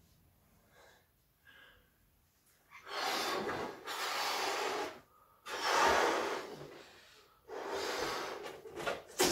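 Three people blowing up party balloons by mouth: four long, noisy breaths of air pushed into the balloons, one after another, starting about three seconds in.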